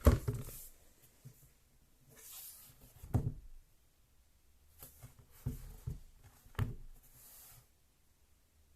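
Hands handling a tablet case and stand: a few scattered knocks and dull thuds, with brief rustling between them.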